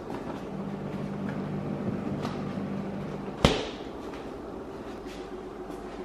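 Refrigerator being opened, with a low steady hum for about three seconds, then a single sharp slam as the door is shut about three and a half seconds in.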